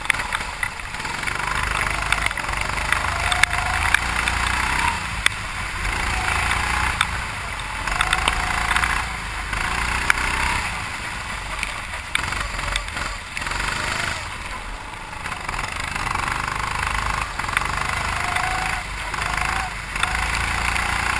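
A 270 cc, 9 hp four-stroke kart engine being driven on a wet track, revving up and dropping back again and again every few seconds, over a steady rushing hiss.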